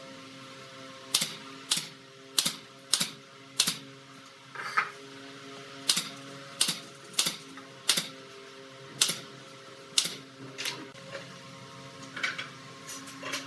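Pneumatic nail gun firing shot after shot into the wooden frame, sharp snaps roughly every half second to a second, some fifteen in all, over a faint steady hum.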